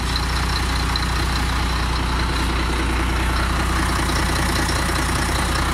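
Scania 124L truck's straight-six diesel engine idling steadily, heard close to the chassis.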